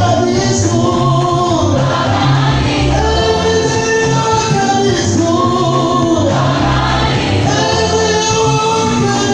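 Children's voices leading a choir in a gospel praise song, sung in phrases of a second or two over a low, steady bass line.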